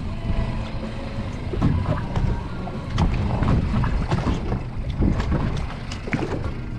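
Wind on the microphone and sea noise aboard a small fishing boat, a dense low rumble with scattered knocks and clicks.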